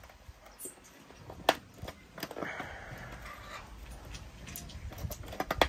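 Twin-loop wire binding and paper pages handled at a We R Memory Keepers Cinch Mini binding machine while the wire is set into the closing slot: a few sharp metal-and-plastic clicks, the loudest about a second and a half in and again near the end, with light paper rustling between them.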